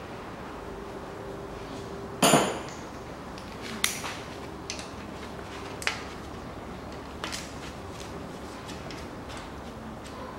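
Metal hand tools clanking on metal: one loud clank with a short ring about two seconds in, then several lighter metallic clicks and taps spread through the rest.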